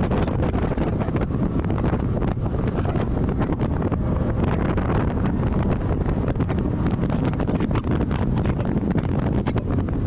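Heavy wind buffeting the microphone on a moving boat: a steady, dense rumble with constant crackling gusts that covers any other sound.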